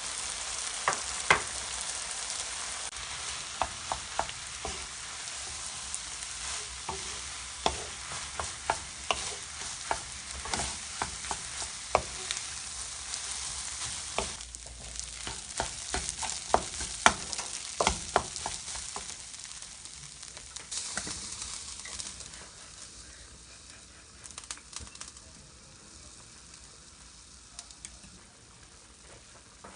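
Sausage-and-vegetable fried rice sizzling in a frying pan as it is stirred, with many sharp clicks of the spatula against the pan. The sizzle and the clicks die down over the last third.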